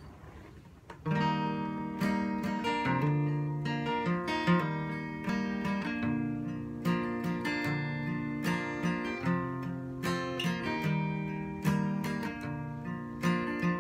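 Acoustic guitar played in a steady picked-and-strummed pattern with moving bass notes, starting about a second in.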